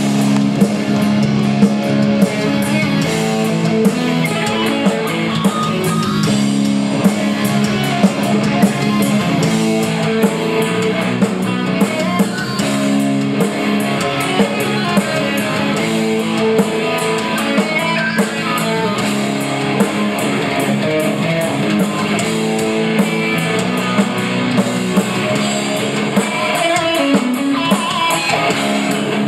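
Live heavy metal band playing: an electric guitar solo over drums and bass guitar.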